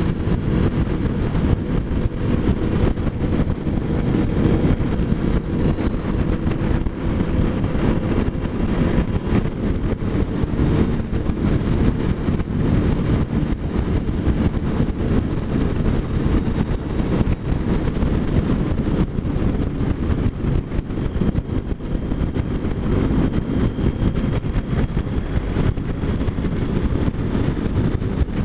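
Kawasaki motorcycle engine running steadily at cruising speed, mostly buried under wind noise buffeting the bike-mounted camera's microphone.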